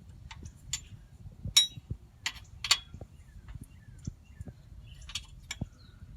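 Irregular metallic clicks and clinks of hand tools and metal parts being handled, with two louder clinks about a second and a half and two and a half seconds in.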